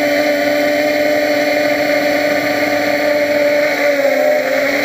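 A quadcopter's motors and propellers humming steadily at a high pitch. The pitch dips slightly about four seconds in.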